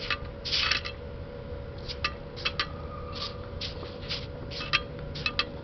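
A wet rag scrubbing flux residue off a freshly welded 1/8-inch stainless steel plate: a run of short rubbing scrapes with several sharp, light metallic clicks, over a faint steady hum.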